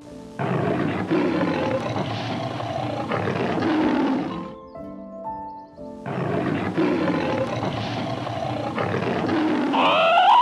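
A large animal roaring twice, each roar a long, rough call of about four seconds, with soft piano music in the pause between. A higher, wavering call starts right at the end.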